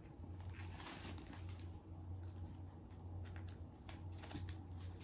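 Faint rustling and light clicks of a handbag and its packaging being handled, over a steady low hum.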